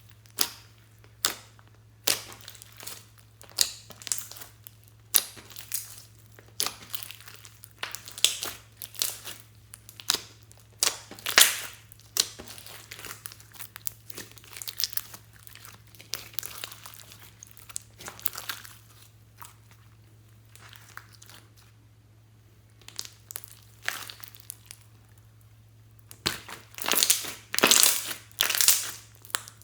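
Slime being squished and stretched by hand, making irregular sticky crackles and pops. They thin out for a few seconds past the middle, then come thick and loud near the end, over a faint steady low hum.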